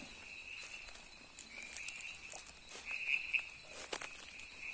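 Night-time chorus of calling animals in the forest: a steady high trill that swells and fades a few times, with a few faint clicks.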